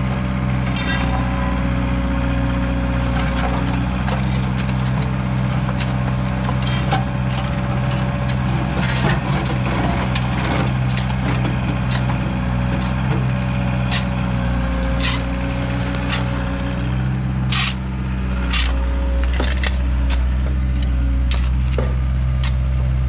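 Cat mini excavator's diesel engine running steadily close by, with a faint wavering whine over the drone. Its bucket knocks and clanks against soil, stones and the trench, giving repeated sharp knocks, thickest in the second half.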